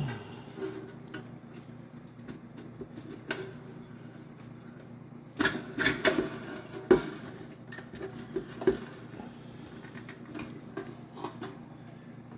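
Metal clinks and knocks as a dryer heating element is worked back into its sheet-metal housing, with a cluster of louder clattering knocks about halfway through.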